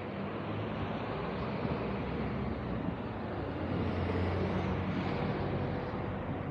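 City road traffic: the steady noise of passing vehicles, swelling as one passes about four seconds in, with a faint rising whine.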